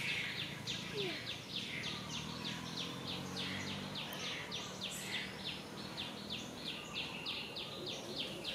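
Outdoor nature ambience dominated by a high-pitched chirping that pulses steadily, about three to four times a second.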